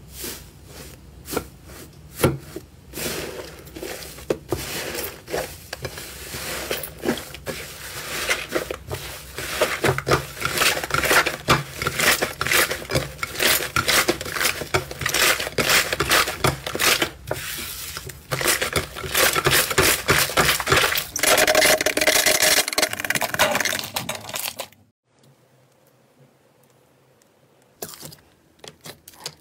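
Hands pressing, squishing and pulling thick textured slime, making a dense run of sticky crackling and popping clicks. The crackling stops abruptly about 25 seconds in, and after a short quiet a few softer clicks come from fingers poking into a glossy slime near the end.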